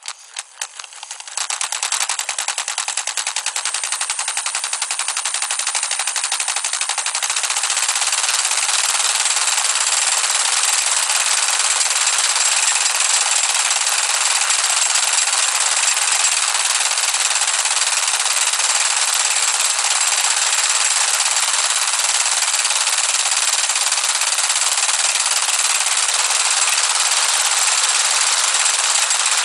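Small two-stroke engine of a CEN gas-powered RC truck, heard from a camera mounted on the truck. It catches in a few uneven sputters over the first second or two, then runs steadily at idle with a fast, even pulse.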